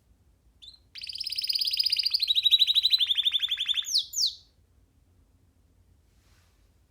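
Young domestic canary singing one song phrase: a short note, then a fast trill of repeated notes that steps down to a slightly lower trill partway through, ending with two quick downward-sweeping notes.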